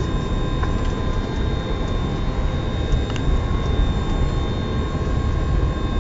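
Cockpit noise of an Airbus A300 on the ground with its engines running at idle: a steady low rumble with thin, steady high whines.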